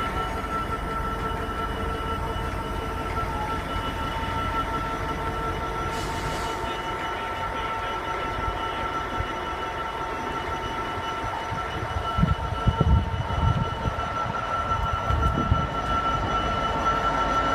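British Rail Class 66 diesel freight locomotive with a two-stroke EMD V12 engine running with a steady whine over a low rumble as its train of car-carrier wagons passes. Several low thuds come between about twelve and sixteen seconds in.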